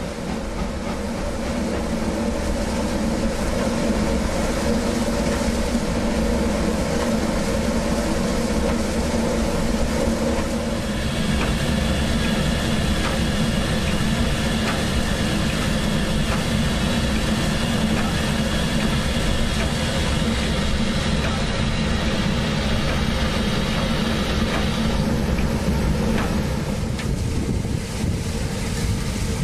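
Built-in sound effects of an O-scale model steam locomotive: a steady drone with hiss. A set of higher steady tones comes in about eleven seconds in and stops about fourteen seconds later.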